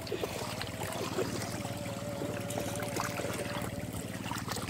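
Shallow muddy floodwater sloshing and trickling around a child wading and groping with his hands for fish, with small scattered splashes.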